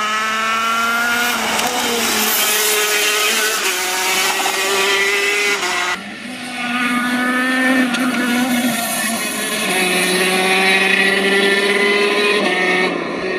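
125cc two-stroke KZ shifter kart engine at high revs, its high-pitched note climbing and dropping back again and again as it runs through the gears. The sound cuts off sharply about six seconds in, and a second run of the same rising and falling revs follows.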